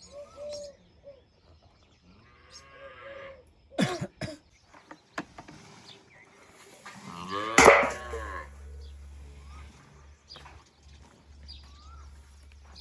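Livestock calling: a few short calls, then one loud, drawn-out call about seven and a half seconds in. A couple of sharp knocks sound around four seconds.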